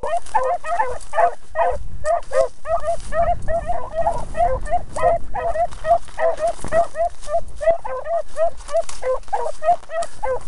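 Beagles giving tongue while trailing a rabbit: quick, overlapping chop barks, about three or four a second, that keep going steadily.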